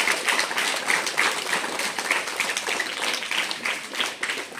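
A small group of people applauding, the clapping thinning out near the end.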